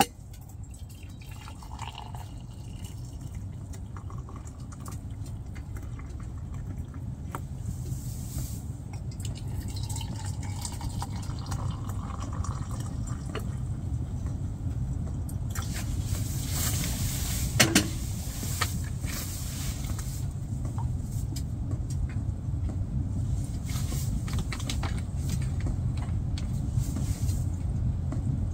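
Hot drink poured from a metal kettle into metal camp mugs, with one sharp clink partway through, over a steady low rumble.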